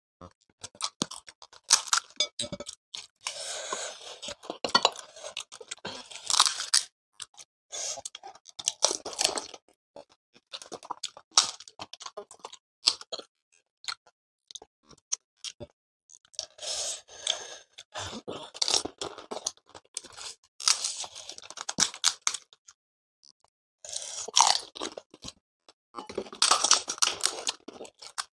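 Panipuri (golgappa) being eaten close to the microphone: crisp hollow puri shells cracking and crunching, with chewing. It comes in irregular bursts with short pauses between mouthfuls.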